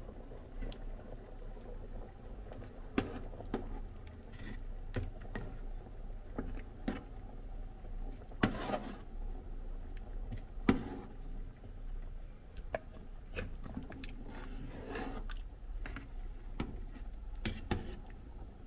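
Metal spoon stirring a thick wheat-and-bean soup in a large metal pot: irregular scrapes and clinks of the spoon against the pot, with a few louder ones around the middle.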